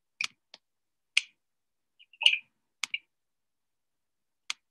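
Scattered sharp clicks, about half a dozen at irregular intervals, with dead silence between them as heard through a Zoom call's noise suppression.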